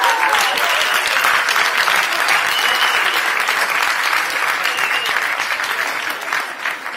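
Audience applauding, with one pair of hands clapping close by; the applause tapers off near the end.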